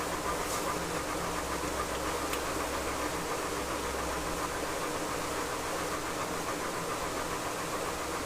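Steady mechanical hum under an even hiss, with no distinct events.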